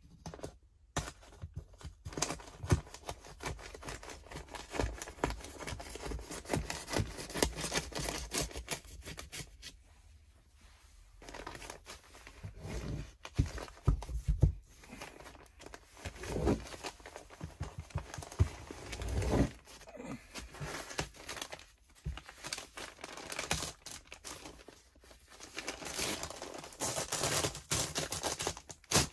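Kraft-faced fiberglass batt insulation being handled and pushed around by hand, its paper facing crinkling and rustling in several spells with short pauses, with a few louder knocks in the middle.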